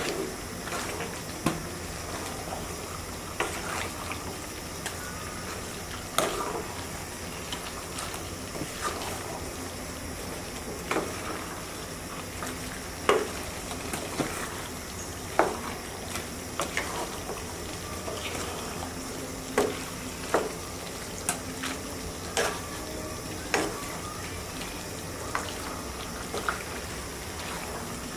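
Beef cooking in a pot in the juices released from the meat, a steady bubbling hiss, with a spoon clacking against the pot every second or two as it is stirred.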